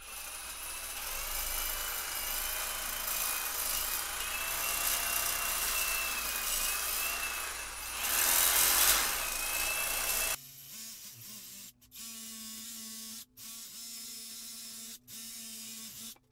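Cordless reciprocating saw with a carbide blade cutting a bevel into the cinder-block edge of a hole: a harsh rasping cut with a wavering whine for about ten seconds, loudest near the end of the cut. It then drops suddenly to a quieter, steadier running sound, broken by a few brief stops.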